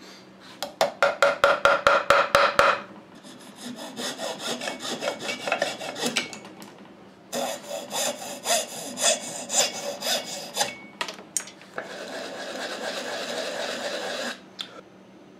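A hacksaw cutting through wooden dowels set in Bondo body filler, in quick back-and-forth strokes with short breaks between runs. Near the end a wooden sanding block rubs steadily over the Bondo for a couple of seconds.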